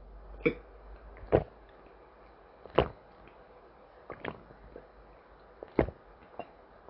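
A series of about six sharp knocks at uneven intervals, a second or more apart.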